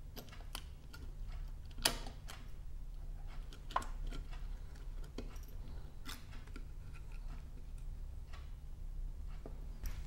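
Small clicks and taps of a precision screwdriver, a tiny screw and the plastic and metal parts of a smart-home touch panel being handled during disassembly, scattered and irregular, the sharpest about two seconds in. A faint steady low hum lies underneath.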